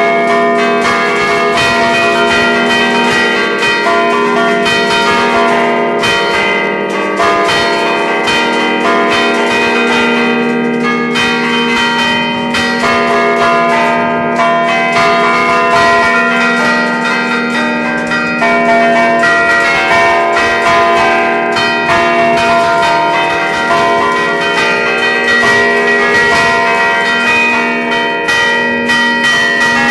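A five-bell ring of Achille Mazzola church bells from 1951, tuned in a slightly flat E-flat, ringing together. The strokes come thick and overlapping and never stop, so the bells' tones hang over one another.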